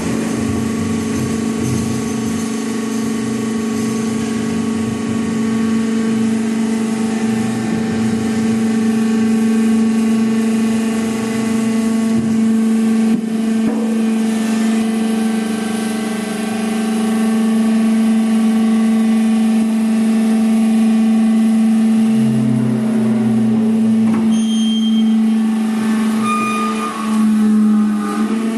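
Hydraulic press machine for oil drums running, its hydraulic pump and motor giving a steady hum on one low tone, with a brief change and some higher squeaks near the end.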